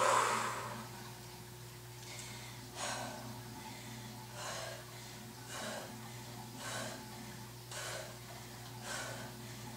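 A woman breathing out hard in short bursts, about once a second, from the effort of reverse pull-ups on a dip station. The first breath, right at the start, is the loudest.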